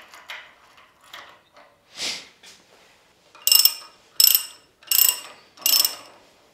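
Socket ratchet wrench clicking through four back-strokes, about one every three-quarters of a second, as a bolt on a stepper-motor gear-drive mount is tightened. Small metal handling clicks and a brief swish come before it.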